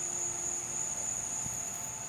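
Steady, unbroken high-pitched chorus of night insects such as crickets, with a faint low hum beneath.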